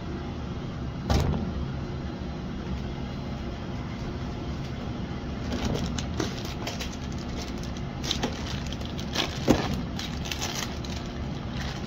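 Steady hum of a commercial kitchen's ventilation, with a sharp knock about a second in and scattered clatters and clicks from about six to ten and a half seconds in, the loudest near nine and a half seconds.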